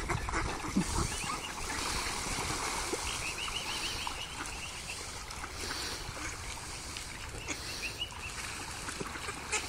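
Swans and mallard ducks crowding on canal water, with short runs of quick, high peeping calls recurring every second or two over a steady wash of light splashing.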